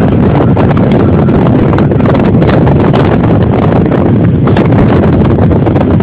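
Loud, steady rumble with crackling from wind buffeting the microphone, mixed with the diesel engine of a Caterpillar 824H wheel dozer working.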